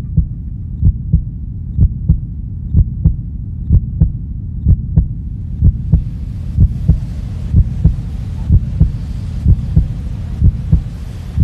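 Produced suspense sound effect: a steady low drone with a regular heartbeat-like pulse of deep thumps, roughly two a second.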